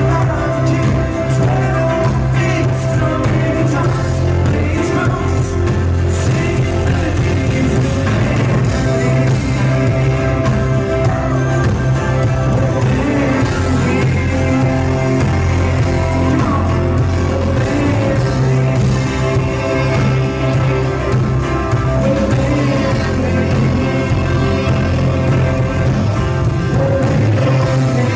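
A live band playing loud and steady, with singing over drums, guitars and fiddle.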